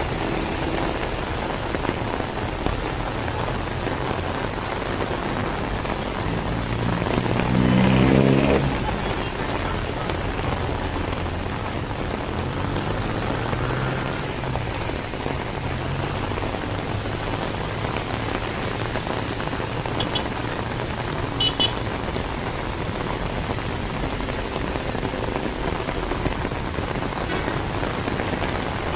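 Heavy rain falling steadily on the street. About eight seconds in, a motor vehicle passes close by, the loudest moment.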